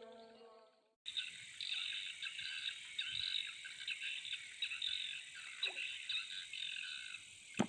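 Night chorus of frogs and insects: dense, rapid chirping with a steady high-pitched insect whine over it. Music fades out in the first second, and there is a single sharp click near the end.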